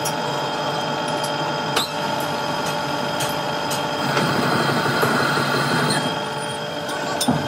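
Metalworking machinery running steadily, a hum with several held whining tones. It grows louder about four seconds in and eases back near the end, with a few light clicks.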